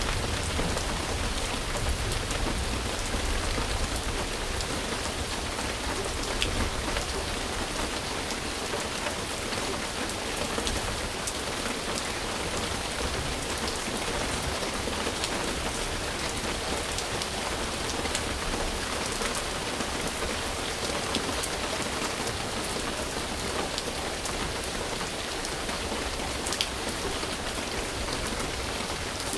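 Steady, heavy rain falling and pattering on surfaces, with scattered individual drop ticks. A low rumble under the rain eases off over the first several seconds.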